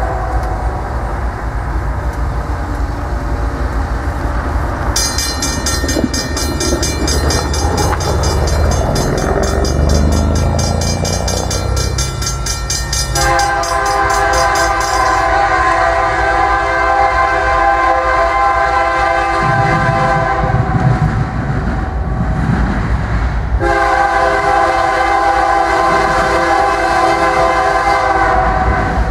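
Multi-chime air horn of a CN SD75I diesel locomotive leading a freight train, sounded in long blasts: briefly at the start, then a long sounding about halfway through and another near the end, over the steady low rumble of the locomotives' diesel engines.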